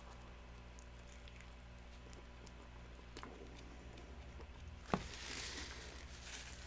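Faint chewing and small mouth clicks of a man eating a McRib sandwich, with a sharp click about five seconds in followed by a brief rustle.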